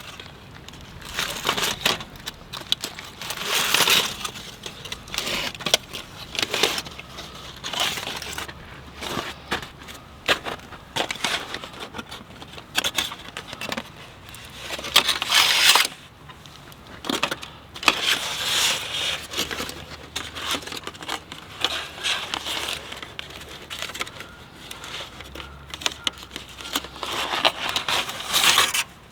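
Irregular crunching, rustling and knocking from gear or materials being handled and moved, in uneven bursts with short clicks and a few louder swells.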